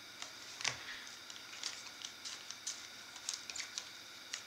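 Glossy chrome baseball cards being flipped through by hand and dealt onto a stack: a scatter of faint, irregular ticks and light card-on-card slaps.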